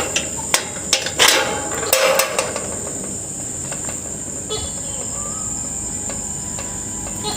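Steady high-pitched chirring of crickets or other insects, with several sharp knocks and two louder rustling noises in the first two and a half seconds.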